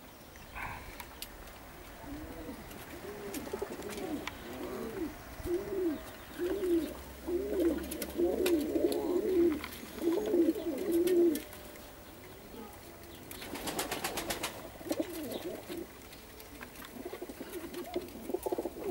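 Perm mane pigeons (Perm grivuns) cooing: a run of rising-and-falling coos, a little more than one a second, from about two seconds in until about eleven, then softer coos near the end. A brief rustling burst comes around fourteen seconds in.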